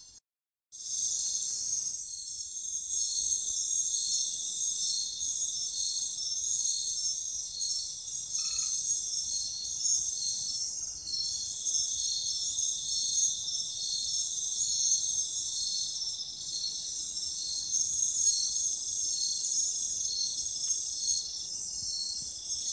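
Dense chorus of night insects: a steady high-pitched trilling with a regular pulsing note in it, starting after a brief silence about a second in. A single brief chirp cuts in about a third of the way through.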